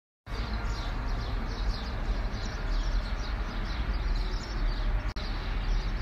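Dawn chorus of many small birds chirping, short falling chirps overlapping several times a second, over a steady low rumble. The sound cuts out for an instant about five seconds in.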